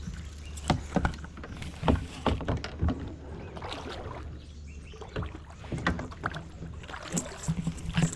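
Irregular knocks and clatter against a sit-in kayak's hull while a hooked bass is being fought from the kayak, over a steady low rumble.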